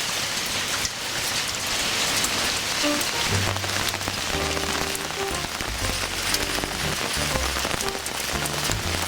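Hailstones falling and striking hard surfaces, a dense, steady patter of many small clicks. Background music with low sustained notes comes in about three seconds in.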